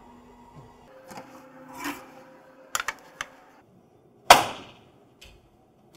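A metal baking tray of freshly baked madeleines is banged down once on the worktop about four seconds in: one sharp clang with a short ring. The knock forces the steam out of the hot cakes so they don't shrink. Before it come a few light clicks and knocks as the tray is handled.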